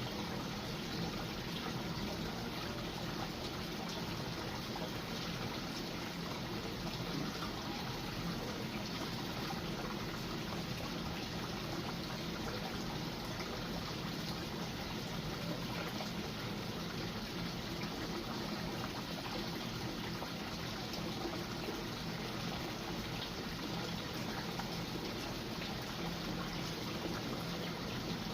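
Steady trickle of running water, with no break or change.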